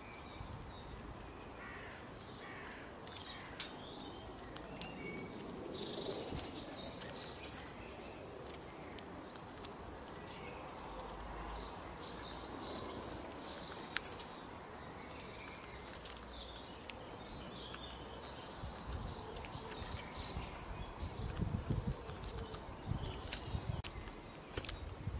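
Small birds chirping in short scattered bursts of song over a steady outdoor hush, with low crackling and scratching rising near the end.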